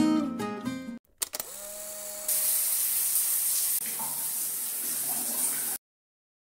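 Acoustic guitar music ends about a second in. Then shower water starts running from a wall-mounted shower panel, a steady hiss that gets louder a little later and cuts off suddenly near the end.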